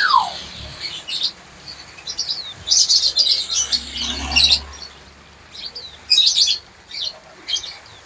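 A cage of pleci dakun white-eyes chirping, in short, busy bursts of high twittering with brief lulls between them. A single falling whistle sounds right at the start.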